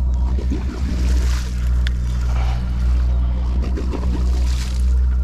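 A boat's engine running with a steady low drone, with water splashing and washing against the hull at irregular moments.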